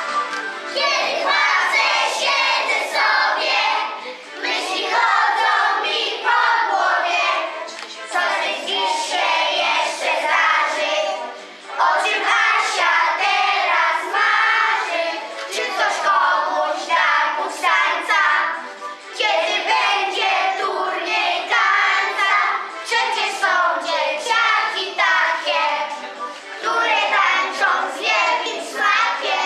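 A group of children singing a song together in phrases a few seconds long, with short breaks between the lines.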